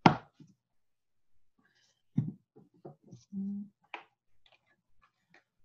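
A sharp click, then scattered light clicks and knocks as a small plastic e-liquid bottle and its cap are handled on a tabletop, with a short low hum about three and a half seconds in.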